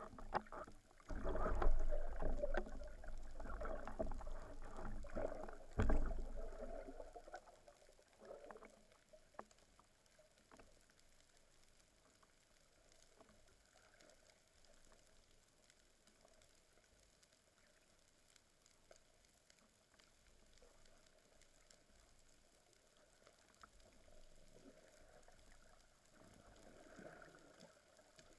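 Water rushing and bubbling around an underwater camera housing as the spearfisher moves at the surface, loudest for the first six seconds or so with a couple of sharper sloshes. After that it settles to a quiet underwater hiss with scattered faint clicks.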